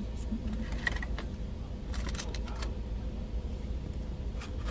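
Car engine idling, a steady low rumble heard inside the cabin, with a few light clicks and rattles of small objects being handled.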